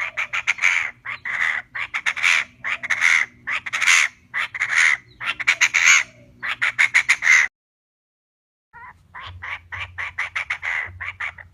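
Recorded call of a female Chinese francolin, used as a trapping lure: loud bursts of rapid, harsh notes about once a second. They break off about two-thirds of the way through and start again after a pause of about a second.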